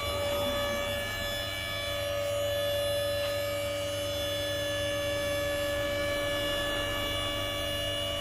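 Car lift's electric motor running with a steady whining hum as it raises the car.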